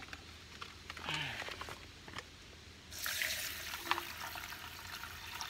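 Hot water being poured into a camp cooking pot of rice, a rushing, splashing hiss that starts suddenly about three seconds in, after a few light clicks.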